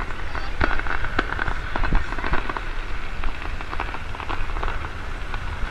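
Fireworks crackling overhead: a dense, irregular patter of small sharp pops like rain, from crackling stars in the bursts, over a steady low rumble.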